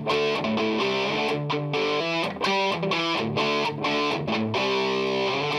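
Background music: guitar-led music with a steady rhythm.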